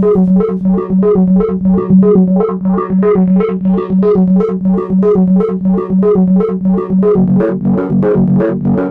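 Korg opsix FM synthesizer playing a sequenced pattern: quick repeating notes at about four a second over a steady pulsing bass note. About seven seconds in, the bass line moves to lower notes.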